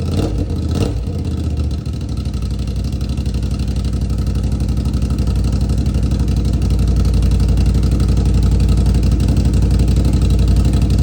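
Can-Am Outlander 570's V-twin engine idling steadily through a custom Spintech 6000 Pro Street muffler, with two short clicks in the first second.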